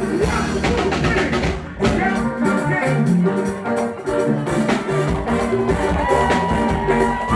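Live gospel band music with a drum-kit beat, with a short break and a strong hit about two seconds in.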